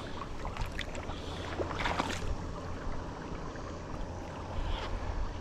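Steady low rumble of wind buffeting the microphone, with a few brief handling knocks and rustles about two seconds in and again near the end.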